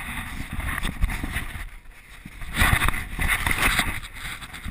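Rustling, rumbling and bumping of a helmet-mounted action camera being moved about, with wind-like noise on its microphone and a few sharp knocks. The noise swells for about a second just past the middle.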